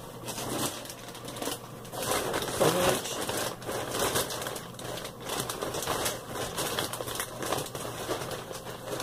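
Rustling and crinkling as craft supplies are rummaged through by hand, with irregular rustles and small clatters that grow busier about two seconds in.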